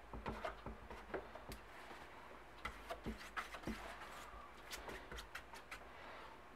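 Faint, irregular small clicks and light rubbing of hands and a small tool on the doped silk covering of a model airplane wing, as a hair caught in the wet dope is picked out.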